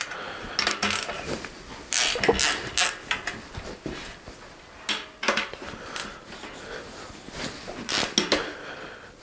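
Scattered light clicks, taps and rattles of a bicycle's rear wheel being handled and worked loose from the frame in a repair stand.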